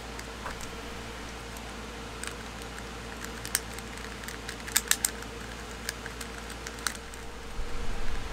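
Plastic 3x3 puzzle cube being twisted by hand: scattered sharp clicks and snaps as the layers turn, with a quick run of three about five seconds in, over a faint steady hum.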